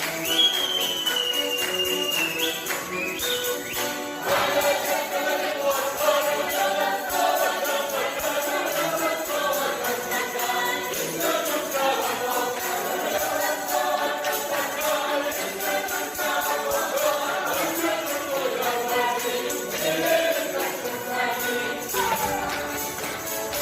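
Folk ensemble singing a lively song together in several voices, with jingling percussion keeping the beat.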